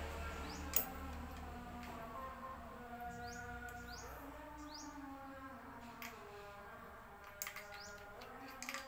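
Small birds chirping in short rising notes, over fainter held tones that shift in pitch. A few sharp clicks come about a second in and again near the end.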